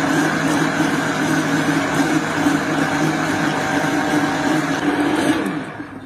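Countertop blender motor running steadily at speed as oil is streamed in through the lid opening, then switched off about five and a half seconds in, its pitch falling as it winds down.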